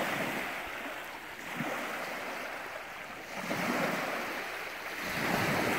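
Small lake waves lapping and washing onto a pebbly shore, swelling twice, around the middle and near the end.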